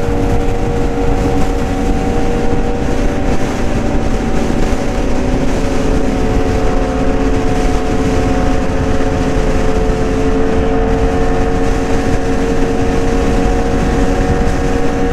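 Suzuki GSX-R 750's inline-four engine running at a steady freeway cruise, its note holding level, under heavy wind rush on the rider's microphone.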